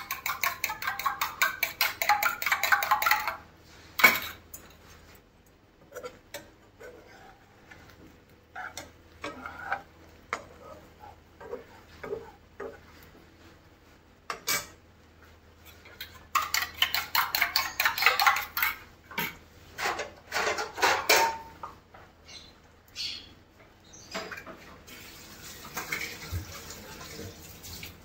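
A slotted metal spoon scrapes and taps against a non-stick frying pan as it works at a frying egg. There are two runs of quick, rhythmic scraping strokes, one at the start and one past the middle, with a sharp knock about four seconds in and scattered light clicks between them.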